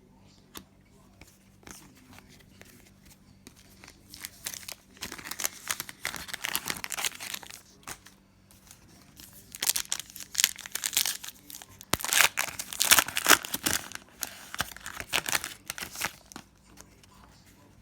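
Foil trading-card pack wrapper being torn open and crinkled, in several spells of crackling, loudest about two-thirds of the way through.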